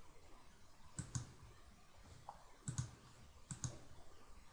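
Computer mouse button clicked three times, each click a quick double tick of press and release, faint against a quiet room.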